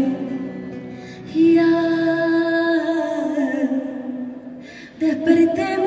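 A woman singing a slow worship song into a microphone, amplified through the PA, in long drawn-out notes. One long held note steps down in pitch and fades, and a new phrase begins near the end.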